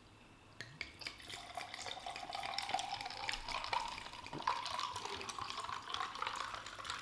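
A drink being poured into a glass: a splashing pour whose pitch rises steadily as the glass fills, starting about a second in and tailing off near the end.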